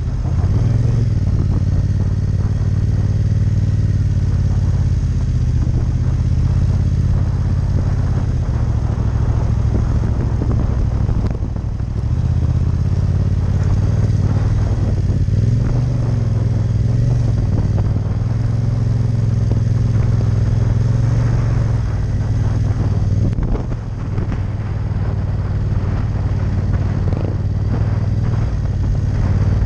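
Yamaha MT-07 Tracer's parallel-twin engine running at low revs, heard from the bike as it is ridden slowly on beach sand. The engine note rises and falls a little with the throttle and dips briefly twice.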